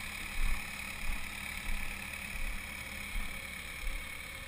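Construction-site machinery engine running steadily, with low thuds of footsteps on the gravel track.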